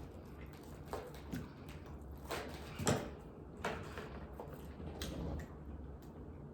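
Scattered soft clicks and taps of pizza and its cardboard box being handled during a meal, over a low hum.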